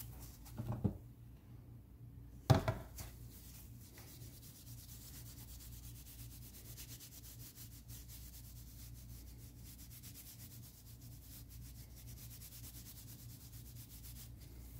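A brush-plating applicator rubbed steadily back and forth over a golf club's face while copper is plated on: a soft, continuous scratchy scrubbing. A light knock comes just under a second in and a sharp, louder knock about two and a half seconds in.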